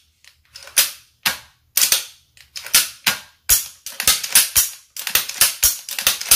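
Sharp metallic clicks and snaps of a Toros Copolla TR12 12-gauge AR-pattern shotgun's action being worked and dry-fired in a function check after reassembly, the hammer striking the firing pin. The clicks come as a quick, uneven series of more than a dozen, starting after a brief pause.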